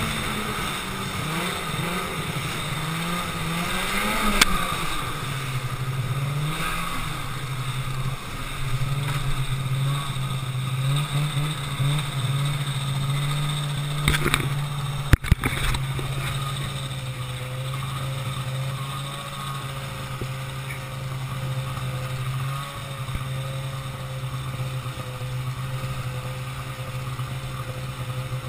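Ski-Doo snowmobile engine running under way. Its pitch rises and falls over the first few seconds, then holds steady. Two sharp knocks come about halfway through.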